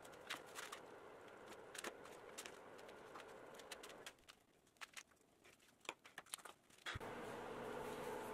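Faint scattered clicks and soft scrapes of a knife and hands skinning a deer head on cardboard, quieter after about four seconds. About seven seconds in they give way abruptly to a steady hum.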